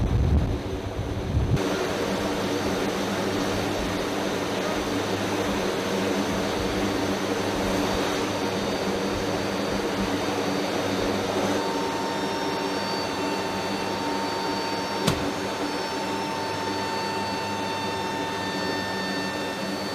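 Aircraft turbine engines running steadily on the ground, an even whine carrying several steady tones. Wind buffets the microphone for the first second or so, and there is a single sharp click about fifteen seconds in.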